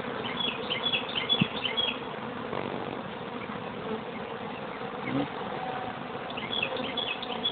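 A swarm of honey bees buzzing steadily all around, a dense continuous hum. Short high chirps come through in the first couple of seconds and again near the end.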